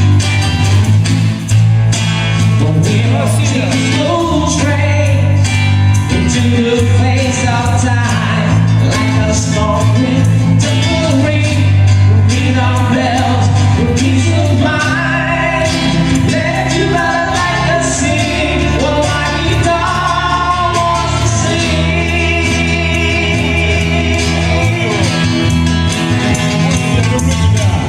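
A song playing loud, with singing over a steady bass and beat.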